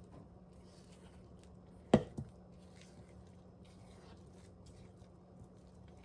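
Silicone spatula gently folding thick, lumpy pancake batter in a stainless steel bowl: soft wet stirring and scraping. About two seconds in there is a sharp knock, followed at once by a smaller one.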